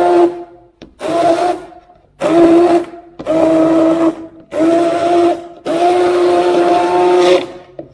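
Sonifer single-speed hand blender motor whining as it purées thick rice porridge, switched on and off in about six short bursts, the last the longest.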